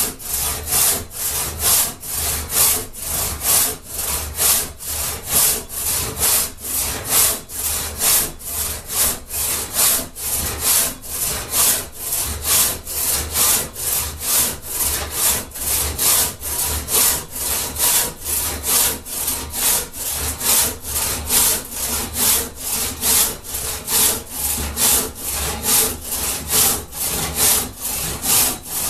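One-man crosscut saw, freshly sharpened and set, cutting through a dry mulberry log with quick, even back-and-forth strokes, about two a second, each stroke a burst of sawing noise. The dried wood cuts hard and gives sawdust rather than long shavings.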